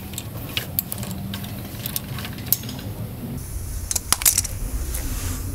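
Pliers gripping and turning a small brass valve loose from a steam pipe fitting: light metallic clicks and scrapes, with a cluster of sharper clinks about four seconds in.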